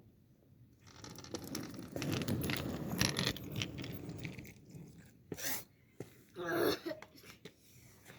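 Skateboard rolling over the ground, its wheels making a rough rumbling clatter for a few seconds, followed by a few sharp knocks and a short louder noise.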